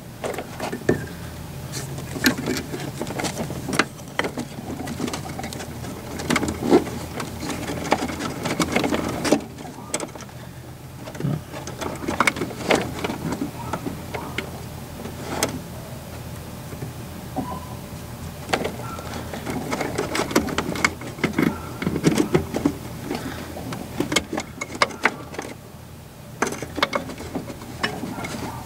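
Irregular clicks, knocks and rustling of hands and tools working on a cable fitting under a car's dashboard.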